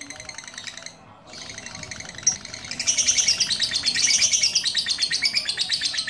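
Lovebird chattering in a long, fast run of high chirps, the continuous song that duration lovebirds are kept for. It breaks off briefly about a second in, then resumes and grows louder from about three seconds in.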